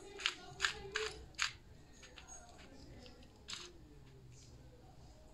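Clicks of a 2x2 Rubik's cube's layers being twisted by hand: four quick turns in the first second and a half, then one more about three and a half seconds in.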